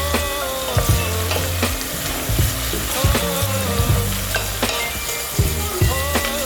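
Chopped onion frying in hot oil in a pot, sizzling steadily, with scattered clicks of a spoon stirring against the pot.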